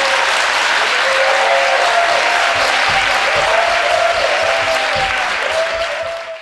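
Audience applauding, with a few held tones, music or cheering, over the clapping; it cuts off abruptly at the end.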